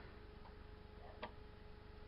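Near silence with a few faint clicks, from a micrometer being closed on the freshly turned steel bar to check its diameter.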